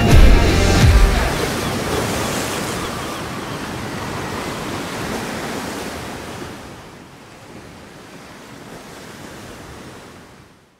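Background music ending with a couple of low hits about a second in, leaving a steady rush of ocean surf noise that slowly fades out.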